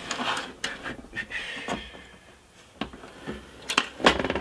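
Clicks, knocks and scraping as an oscilloscope's main circuit board is slid out of its metal chassis, with the loudest cluster of knocks near the end.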